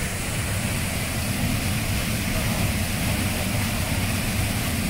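Waterfall pouring into a rock pool: a steady rush of falling water with a low rumble underneath.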